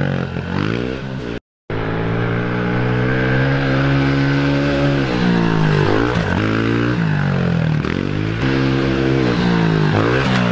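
2020 Honda CRF110F pit bike's small air-cooled single-cylinder four-stroke engine revving as it is ridden hard. Its pitch climbs steadily for a few seconds, then drops and rises again several times in quick swells. The sound cuts out briefly a little over a second in.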